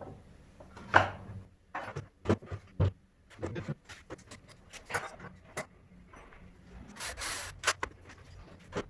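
Workshop handling sounds: scattered knocks, clicks and rubbing of wood and tools, with a short scrape about seven seconds in.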